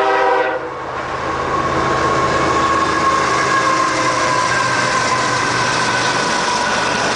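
Freight train horn sounding, cutting off about half a second in. A pair of GE ES44AC diesel-electric locomotives then pass close at speed, followed by empty covered hopper cars rumbling and clattering over the rails.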